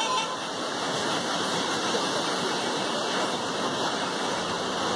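Fast-flowing floodwater rushing steadily.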